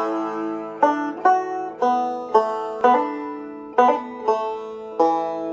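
Background music: a slow melody on a plucked string instrument, each note struck and left to ring out over a steady low held tone.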